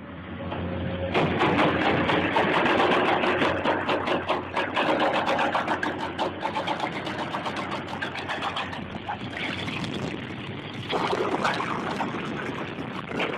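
A heavy machine's engine running, overlaid with dense rattling and clanking knocks.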